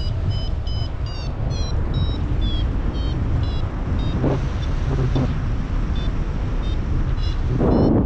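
A paragliding variometer beeping in short chirps, about two or three a second, its pitch shifting from beep to beep, signalling climb in lift. The beeps thin out after a few seconds. Heavy wind noise rumbles on the microphone throughout.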